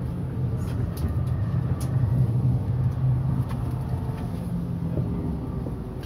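Tram running, heard from inside the car: a steady low rumble of motors and wheels on rails that swells a little in the middle, with a few faint clicks.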